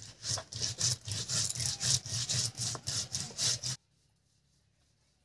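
Stone roller scraping back and forth on a flat grinding stone (sheel and nora), grinding mustard seeds, poppy seeds and green chillies into a paste: rhythmic strokes, about two a second, that stop abruptly about four seconds in.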